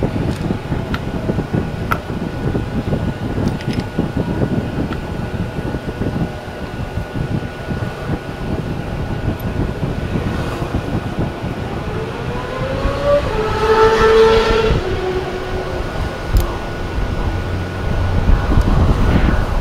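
Steady vehicle rumble with wind buffeting the microphone. About two-thirds of the way in, a pitched tone rises and then holds for about two seconds before fading.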